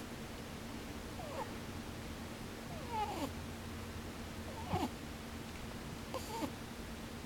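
A sleeping pet rabbit snoring in short, squeaky "puu-puu" sounds, one every second or two.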